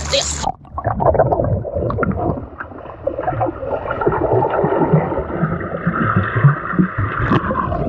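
A swimming pool heard from underwater: muffled water noise with bubbling and gurgling. About half a second in, the sound changes abruptly from the open air to underwater as the microphone goes below the surface.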